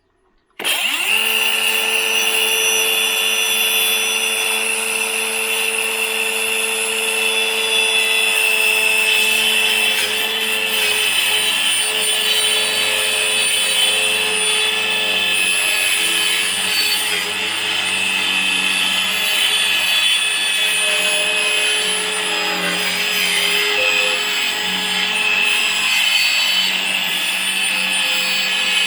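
Worx WU533 cordless circular saw starting about half a second in and running steadily as it rips 12 mm plywood lengthwise, a high whine over the sound of the blade cutting wood.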